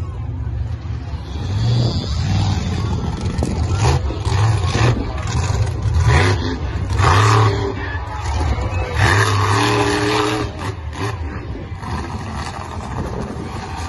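Monster truck engine running loud and rough, revving up in repeated surges every couple of seconds as the truck drives and turns on the dirt track.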